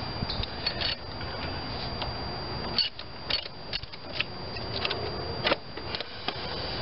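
Socket wrench working the nut on a car battery's cable clamp, with irregular metallic clicks and clinks as the clamp is loosened and the cable comes off the terminal.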